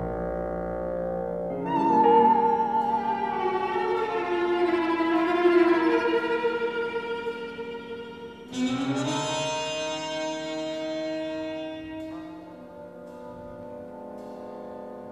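Slow background music of long, held notes with vibrato, classical in style. New phrases come in about two seconds in and again just past the middle, and it grows quieter toward the end.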